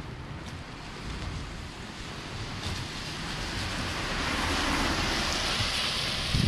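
A road vehicle approaching, its tyre hiss swelling from about halfway in, over a low wind rumble on the microphone.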